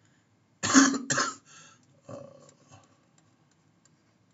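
A person coughing: two loud coughs close together less than a second in, then fainter coughing about two seconds in.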